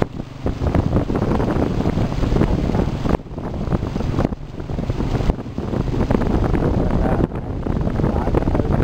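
Wind buffeting the camera microphone: a loud, rumbling rush of noise that dips briefly a few times.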